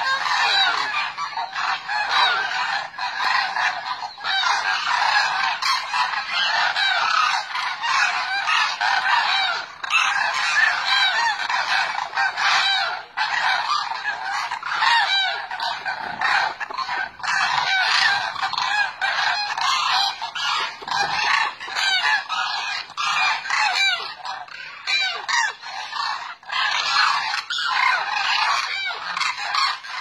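A large flock of demoiselle cranes calling all at once: a dense, unbroken chorus of many overlapping honking calls.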